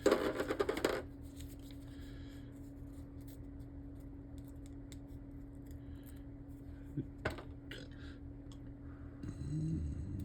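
Crackling, scratchy rustle for about the first second as a paper sticker sheet is handled and a sticker peeled from it, then a few small sharp clicks of plastic parts being handled later on, over a steady low electrical hum.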